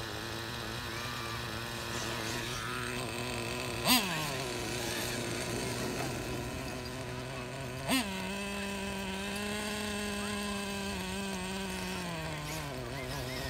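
Radio-controlled monster truck's motor running, a steady buzzing whine that drops in pitch near the start. Two short, sharp throttle blips about four and eight seconds in send the pitch leaping up and falling back; after the second it holds a higher pitch, then drops again near the end.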